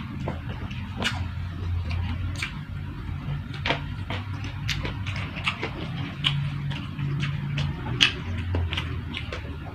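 Close-up eating sounds: chewing with irregular short crunches and clicks, several a second, from a mouthful of food. A low steady hum runs underneath, fading in and out.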